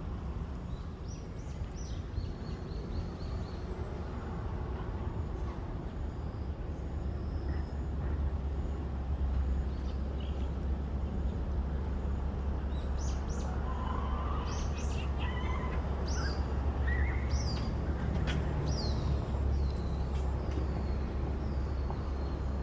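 A steady low hum, with a run of short, high, downward-sliding chirps from small birds in the second half.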